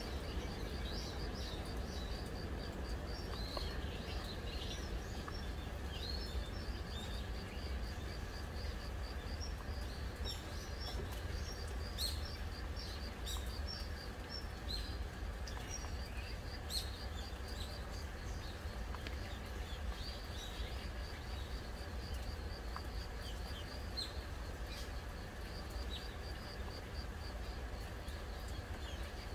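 An insect's rapid, even trill at one high pitch runs on without a break, with short chirping bird calls scattered through it. Underneath is a steady soft hiss of gentle rain, with a few sharp ticks.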